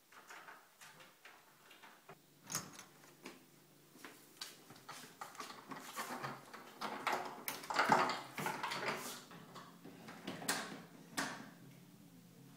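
Metal lever handle and lock of a wooden door rattling and clicking as they are jiggled by hand, in an irregular run of clicks and knocks that is busiest and loudest a little past the middle.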